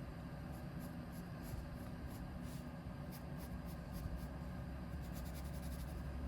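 Drawing tool working on paper: a run of short, scratchy strokes repeating irregularly, over a low steady hum.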